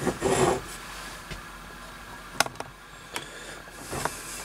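Handling noise: a short rustle at the start, then a few light, separate clicks and taps.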